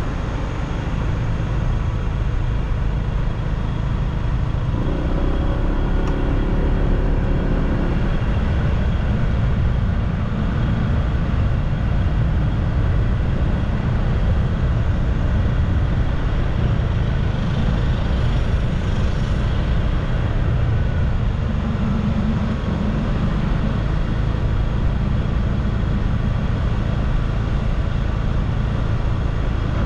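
Motorbike riding along the road: a steady low rumble of engine and road noise, with a brief extra hiss about 18 seconds in.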